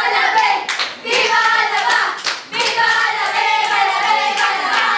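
A group of young teenagers chanting a short group yell together, with hand clapping: the group's signal that it has finished its activity.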